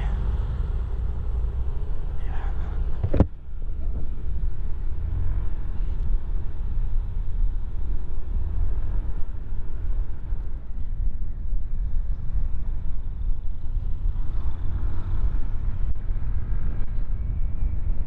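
Steady low wind rumble on the camera microphone over a motor scooter running along the road while riding. There is a sharp click about three seconds in, after which the sound turns duller.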